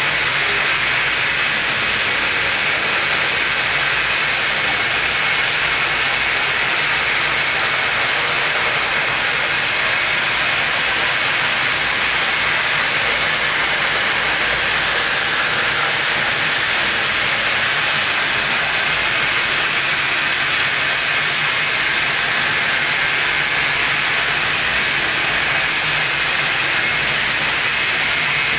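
A steady, unchanging hiss with a brighter band in the upper middle and no separate events.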